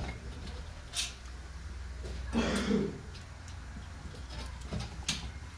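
Small clicks and handling noises from a car carburetor's metal parts as its float and float pin are fitted by hand: two sharp clicks, about a second in and near the end, and a brief scraping rustle midway, over a steady low hum.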